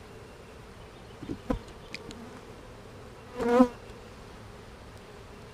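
Honeybees humming steadily around an opened hive as frames are lifted out. There is a light knock about a second and a half in, and a louder buzz about three and a half seconds in as a bee passes close.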